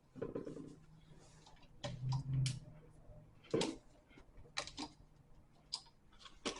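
Irregular clicks and light metallic taps of a screwdriver working a GFCI receptacle's terminal screw while the hot wire is tightened down.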